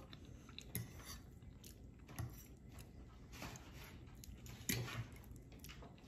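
Quiet eating sounds: chewing and a few light clinks of a metal fork against a plate, the sharpest about three-quarters of the way in.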